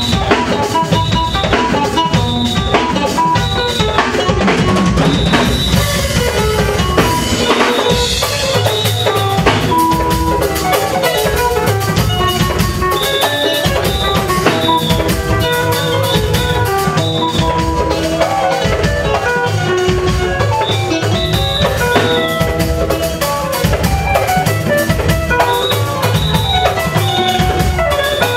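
Live band music: an amplified kora plucking a repeating melody over a drum kit and hand drums keeping a steady beat.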